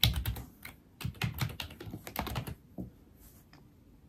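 Typing on a computer keyboard in two quick runs of key clicks, the first in the opening half second and the second from about one to two and a half seconds in.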